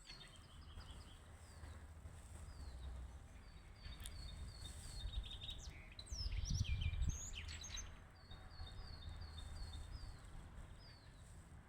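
Songbirds singing outdoors: repeated phrases of short, quick falling notes, with other chirps overlapping near the middle. Under them is a steady low rumble that swells briefly about halfway through and is the loudest part.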